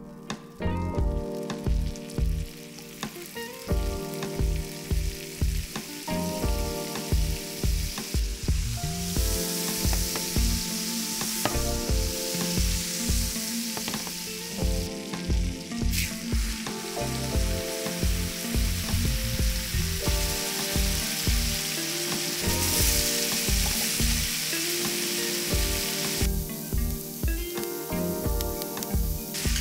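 Butter sizzling in a hot frying pan. The sizzle builds up from about eight seconds in, under background music with a steady beat.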